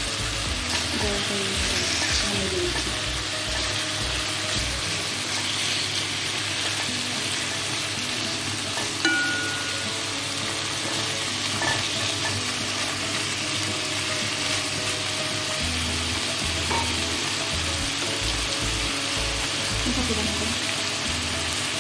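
Chicken pieces frying in a pan, a steady sizzle, turned now and then with a plastic spatula.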